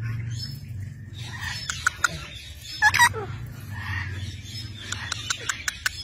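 Parakeets: a brief squawking call about halfway through, and a run of sharp clicks near the end as their beaks peck at the stone tabletop.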